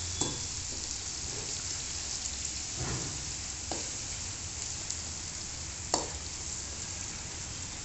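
Onions, garlic, ginger and tomato sizzling in hot oil in a stainless steel wok as curry powder is stirred in with a metal ladle. The ladle knocks against the wok a few times, most sharply about six seconds in.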